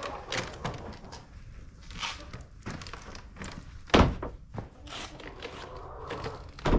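A plastic scoop knocking and scraping inside a galvanized metal can, as it scoops chicken feed, in a series of separate knocks. The loudest is a deep thunk about four seconds in.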